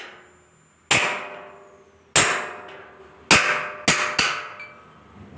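Hammer blows on a car's sheet-metal bonnet: a light tap, then five sharp metallic strikes, each ringing out briefly, the last three coming closer together.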